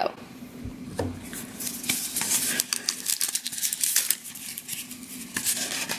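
Handling of a blind-box cup and its clear plastic wrapper as the box is opened and the wrapped eraser pulled out: scattered small clicks and soft rustling.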